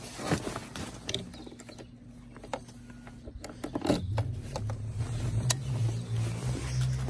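A few clicks and scrapes of handling, then a Yamaha snowmobile engine starts about four seconds in and settles into a steady idle.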